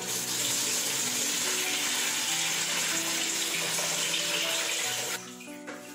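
Water pouring steadily into a large metal pot of whole chickens to make the broth, stopping about five seconds in. Soft background music plays underneath.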